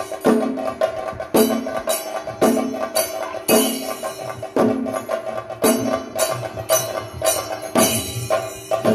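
Traditional percussion music: a heavy drum stroke about once a second over quicker clicking strokes and a steady ringing tone.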